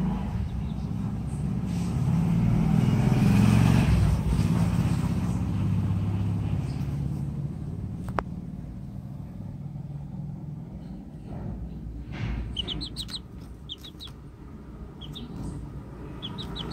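Two-week-old chicks peeping, short high cheeps in a few quick runs in the second half, over a low rumble that is loudest in the first few seconds.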